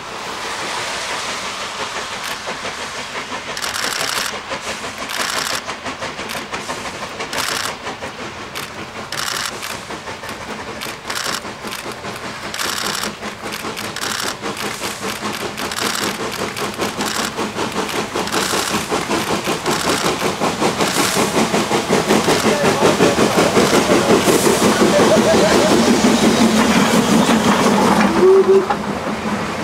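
Two metre-gauge steam tank locomotives working hard side by side, their exhaust chuffs falling irregularly out of step. The sound grows steadily louder as they approach, ending in a heavy rumble of running gear and wheels as the trains pass close.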